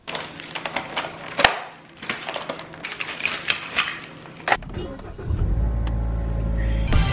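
Plastic packaging crinkling and rustling, with several sharp clicks. About four and a half seconds in, a car engine starts and settles into a low, steady rumble, heard from inside the cabin.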